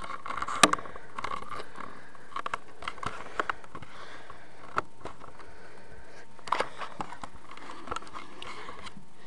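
Skink chewing soft meat-and-vegetable food: irregular small wet clicks and smacks of its jaws, the loudest about half a second in.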